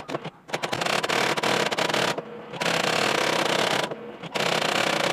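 Brother electronic daisy-wheel typewriter printing: a fast clatter of daisy-wheel strikes in three runs, broken by short pauses about two and four seconds in.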